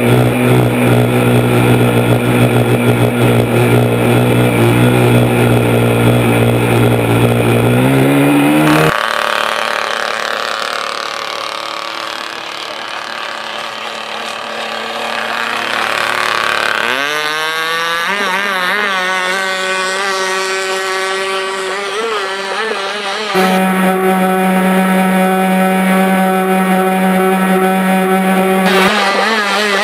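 Model boat's small nitro glow engine running flat out: a loud, steady, high-pitched buzz heard close up with water spray for the first third and again near the end, and fainter and farther off in between. About two-thirds through, its pitch rises sharply as it speeds up.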